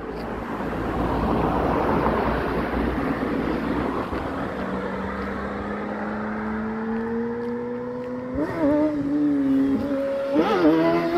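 A vehicle rushes past with loud tyre and road noise. Then a Kawasaki Ninja motorcycle's engine is heard approaching and growing louder, its pitch climbing steadily as it accelerates, with two brief pitch wobbles near the end that sound like gear changes.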